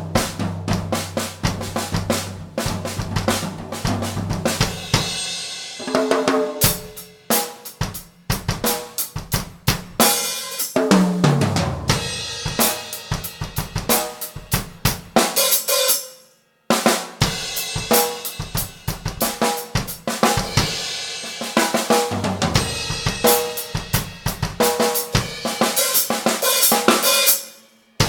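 Drum kit played live and loud: rapid snare, bass drum, hi-hat and cymbal hits, with low sustained notes underneath. The playing breaks off briefly about two-thirds of the way through, then resumes.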